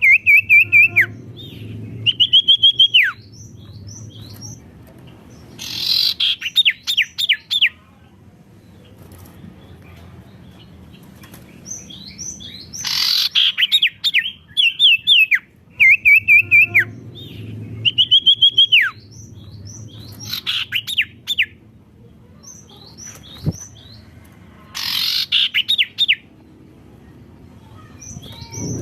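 A songbird known to Indonesian bird keepers as a sirtu singing loudly in repeated phrases. Each phrase is a held whistle that drops at the end, followed by a rapid run of sharp falling notes, repeating about every six seconds.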